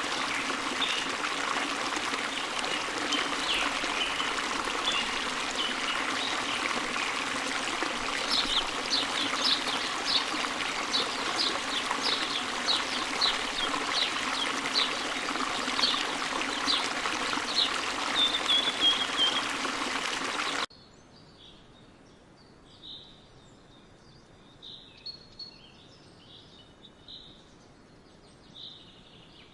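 Steady rush of running water with a bird repeating short high chirps about once a second, ending in a brief trill. About twenty seconds in it cuts abruptly to a much quieter background with scattered faint bird chirps.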